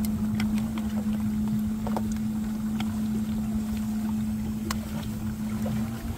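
Steady hum of the DIY cooler live well's 12 V pumps running, a bilge pump circulating the water and an air pump bubbling it, with the foamy water churning in the cooler and a few faint ticks.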